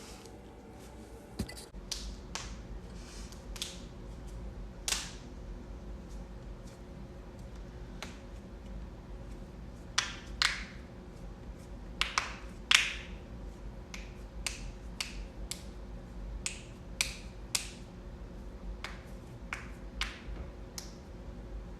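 Human joints being cracked: about twenty sharp pops at irregular intervals, some in quick clusters of two or three, the loudest near the middle.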